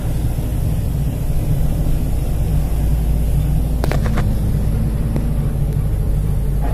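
Steady low rumble of a moving vehicle's engine and road noise, heard from inside the vehicle, with a couple of brief rattles about four seconds in.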